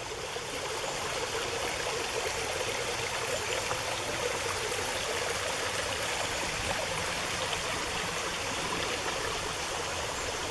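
Creek water running, a steady rushing.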